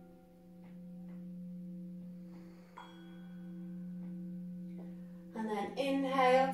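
Soft ambient background music: a steady drone of sustained tones, one of them pulsing slowly. A woman's voice comes in about five seconds in.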